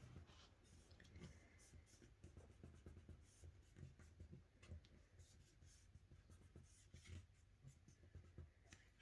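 Faint paper handling: soft rustles and scattered light taps as a paper strip is glued and pressed in place on a card.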